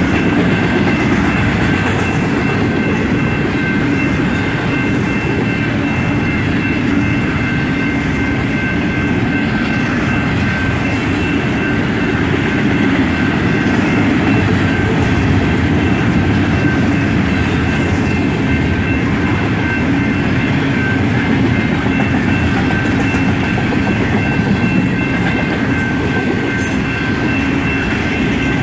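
BNSF intermodal freight train with double-stack container cars rolling past at speed: a loud, steady rumble and clatter of wheels on rail. A few faint, steady high tones run over it.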